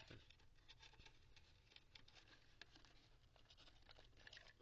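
Faint scratching and rustling of fingers untwisting paper-covered twist ties threaded through a cardboard toy box, many small irregular ticks.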